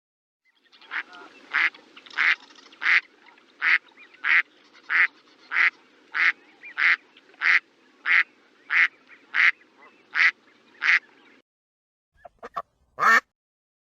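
A duck quacking in a steady series, about sixteen quacks roughly two-thirds of a second apart. After a short pause come a few quick, faint quacks and one loud quack near the end.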